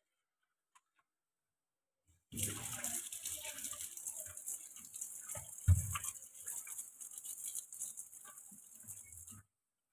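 Kitchen tap running into a sink, coming on about two seconds in and shutting off abruptly near the end, with light clinks from dishes and one louder dull knock midway.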